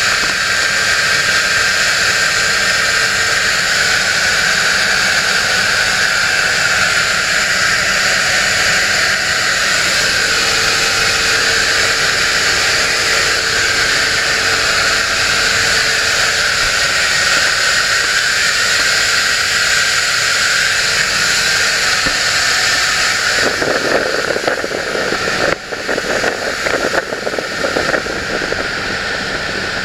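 Runabout under way: a steady, loud rush of engine noise, wind and water. About 23 seconds in, rough fluttering buffeting joins it, like wind hitting the microphone.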